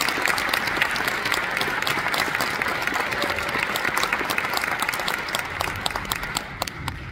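Audience applauding, a dense patter of clapping that dies away toward the end to a few scattered claps.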